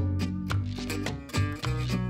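Background music: a plucked-string melody over a bass line, with notes struck several times a second.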